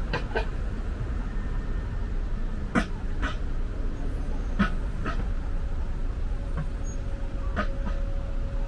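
Car driving, with a steady low road and engine rumble. Short sharp sounds come over it, mostly in pairs, every two to three seconds.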